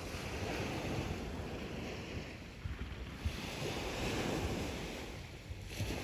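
Small waves washing onto a sandy beach, swelling and easing, with wind buffeting the phone's microphone as a low rumble.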